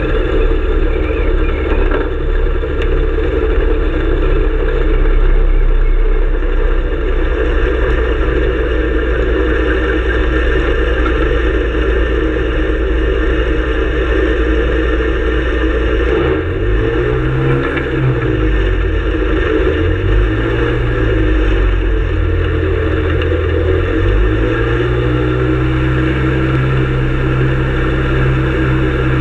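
Ultralight aircraft's pusher engine running steadily as it taxis, then dipping and rising in pitch a few times past the middle before settling at a steady higher note.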